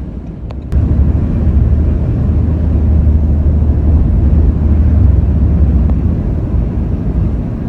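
Steady low rumble of a car driving at road speed: tyre and engine noise. Under a second in the level jumps up abruptly, and it stays loud after that.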